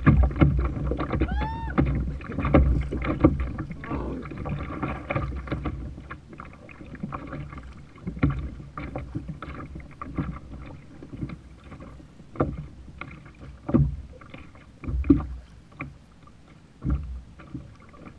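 Waves slapping against a plastic kayak's hull under a low rumble, with scattered irregular knocks and clicks while a rod and reel fight a hooked striped bass. A short rising squeal about a second and a half in.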